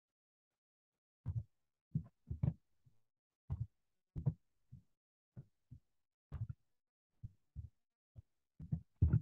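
Computer keyboard keys and mouse buttons being pressed, heard as about fifteen dull thuds through the desk at uneven spacing, starting about a second in, with silence between them.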